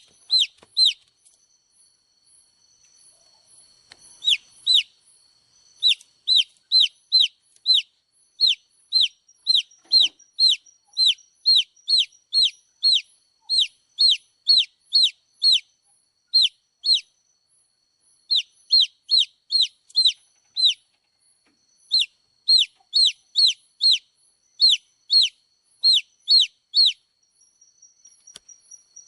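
Baby chicks peeping: a long run of short, high, falling peeps, about two a second, broken by a few brief pauses.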